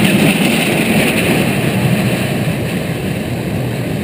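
Small steel kiddie roller coaster train running along its track: a steady rumble of wheels on the rails.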